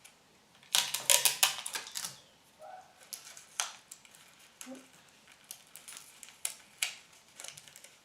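Sellotape pulled off the roll and torn with a loud crackling rip about a second in, then scattered light ticks and taps as a card template is pressed and handled.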